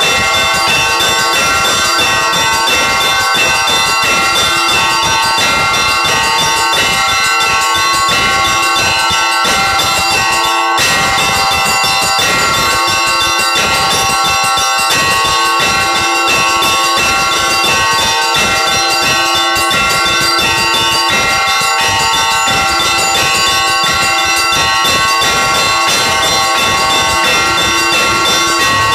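Loud Easter peal of several church bells, rung by hand from the bell tower by pulling ropes, with many bells sounding together in a continuous overlapping ringing.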